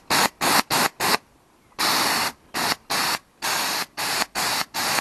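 Compressed-air paint spray gun hissing in about a dozen short bursts as the trigger is pulled and released, spraying paint, with a break of about half a second a little over a second in.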